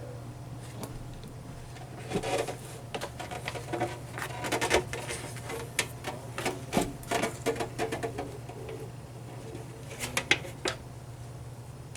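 Sony PS-LX220 turntable running with an irregular rattling and clicking over a steady low hum. This is the rattle fault being diagnosed in the turntable.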